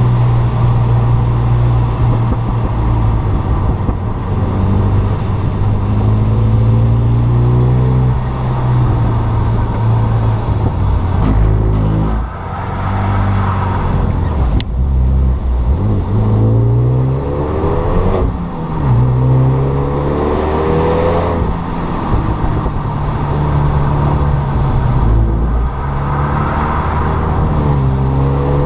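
Renault Mégane 3 RS's stage 2 tuned turbocharged four-cylinder pulling hard. The engine note climbs again and again and drops back at each change, with sharper lifts about twelve and eighteen seconds in.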